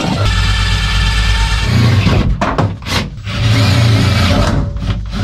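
Cordless drill driving long self-tapping screws through the car's sheet-steel floor to make pilot holes for rivet nuts. It runs in two bursts of about two seconds each, with a short pause and a few clicks between them.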